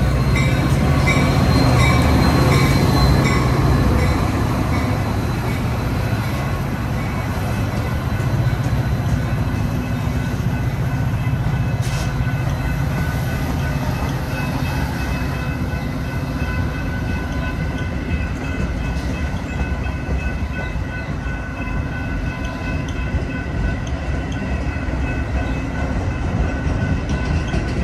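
Metra diesel locomotive running past close by, its engine drone strongest in the first few seconds, then a long string of bilevel passenger cars rolling by with wheels clacking and rumbling on the rails. A grade-crossing warning bell dings repeatedly early on.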